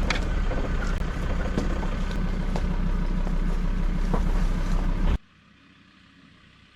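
Four-wheel-drive vehicle's engine and road noise, a steady low rumble while driving, which cuts off suddenly about five seconds in.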